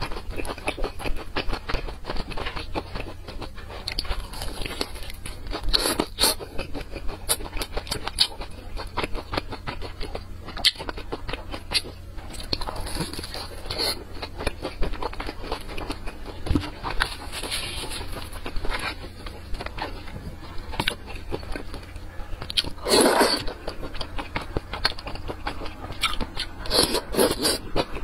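Close-miked eating: biting into and chewing a crunchy deep-fried breaded food, with crackling crunches and wet mouth sounds, over a steady low hum.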